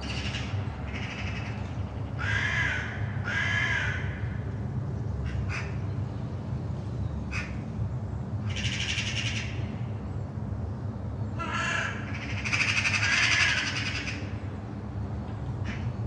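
Crows cawing in a series of calls: several in the first few seconds, more in the middle, and the loudest run a little before the end. Under them runs a steady low drone of aircraft engines.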